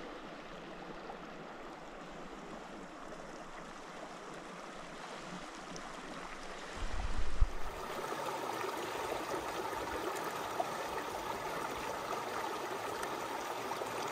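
Mountain stream flowing, a steady rush of water that becomes louder about halfway through, just after a brief low bump.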